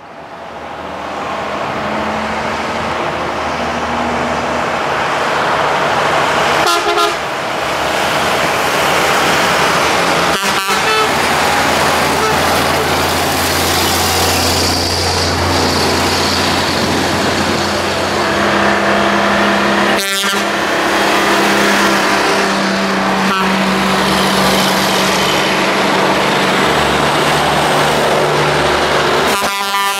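A convoy of vintage Brockway heavy trucks passing close by at road speed, their engines running under load with tyre and road noise, and truck horns sounding in long steady blasts.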